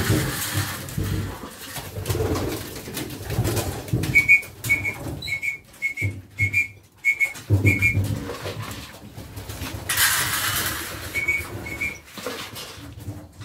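Homing pigeons cooing in their loft. A run of short high peeps comes between about four and eight seconds in, and about a second of rustling noise about ten seconds in.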